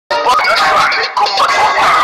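Music with a voice, sung or spoken, over it; it starts abruptly just after a silent gap.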